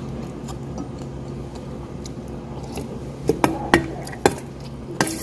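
Utensils clinking against dishes at a meal table: about five sharp clinks with a brief ring in the second half, over a steady low hum.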